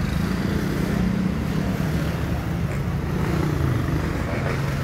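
A motor vehicle's engine running close by: a steady low drone over street traffic noise.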